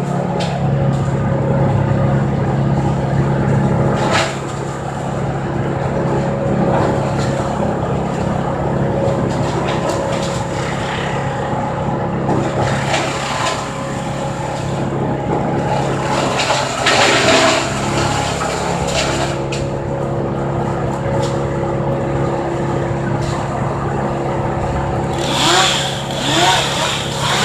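Engine running steadily at a constant speed, revving up twice near the end.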